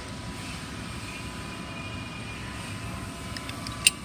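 A steady mechanical drone in the background, with a few light clicks and then one sharp click near the end as the clamp's small metal parts are handled and tightened by hand.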